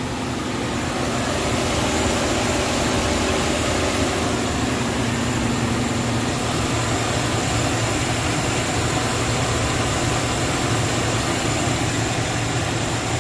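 2012 GMC Sierra 1500 pickup's gasoline engine idling steadily, heard from over the open engine bay.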